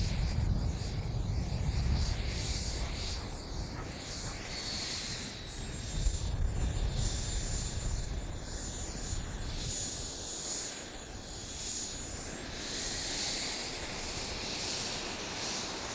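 JetCat P180 model jet turbine in a Cirrus K turbine glider running on the ground with a high-pitched whine as the glider moves slowly across the grass. The whine drifts slowly in pitch and climbs near the end, over a low rumble that is strongest in the first half.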